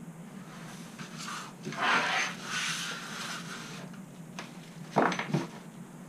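A small plastic parts bag rustles for about a second and a half as it and a few small parts are gathered up off a workbench. Two sharp light knocks follow near the end.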